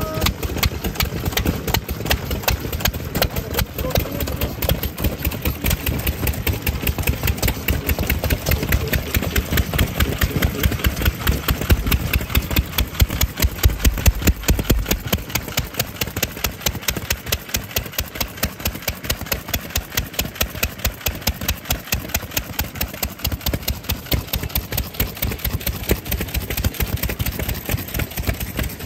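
Vintage Japanese farm stationary engine (nohatsu) running steadily at idle, its exhaust beating several times a second in an even rhythm.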